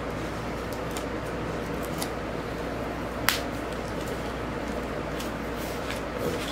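Scissors snipping through the cardboard of a record mailer: a few faint clicks and one sharper click about three seconds in, over a steady background hiss.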